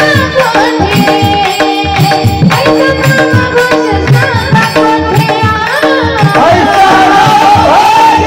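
Marathi devotional song accompaniment: a steady tabla-and-drum beat under held steady tones, with a woman's singing voice rising clearly over it about six seconds in.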